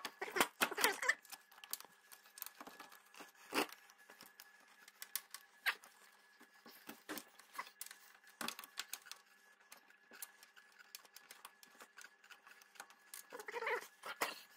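Scattered light clicks and knocks of metal parts being handled and fitted on a lawn tractor's steering linkage, irregular, with a few sharper knocks.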